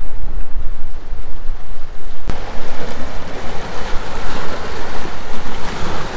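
Choppy lake waves splashing in a strong wind, with heavy wind buffeting on the microphone. About two seconds in, the sound changes abruptly and the splashing of the waves comes up louder.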